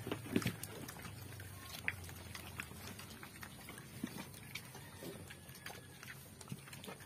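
A group of black pigs feeding off the ground, snuffling and chewing. Many small scattered clicks and smacks, with a louder low snort or grunt about half a second in.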